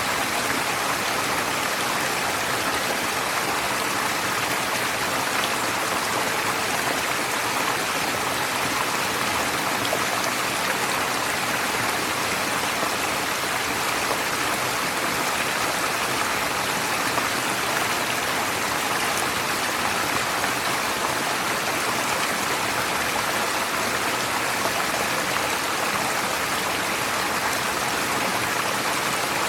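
Forest stream flowing over stones, a steady rushing and babbling.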